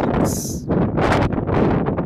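Wind buffeting the microphone in irregular gusts, with heavy low rumble, on the deck of a moving ship. A brief high hiss comes about a third of a second in.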